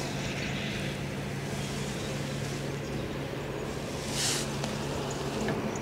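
Steady low hum of a distant motor over faint outdoor background noise, with a short rustle about four seconds in.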